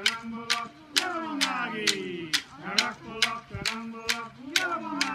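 Wooden clapsticks struck together in a steady beat, about two strikes a second, accompanying singing of a traditional Aboriginal dance song whose phrases slide down in pitch.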